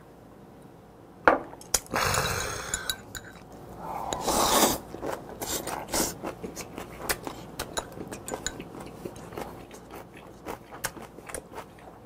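Close-miked eating: a sharp knock about a second in and two longer noisy swishes, then steady chewing of raw squid and crisp vegetables in cold broth, heard as many small wet, crunchy clicks.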